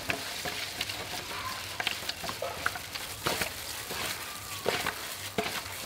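A gloved hand stirring beaten egg in an aluminium bowl: wet sloshing with scattered, irregular small clicks and scrapes against the metal.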